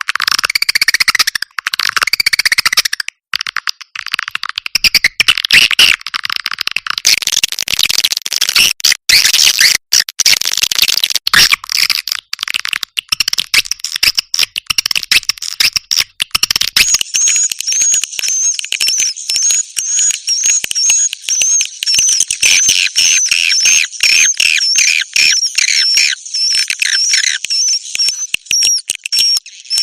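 Edited bird-lure recording of songbird calls, loud and filtered clean of all low sound. It starts as rapid, dense chattering and trills. From a little past the middle it turns to a regular run of short high notes, about two a second, over a lower trill.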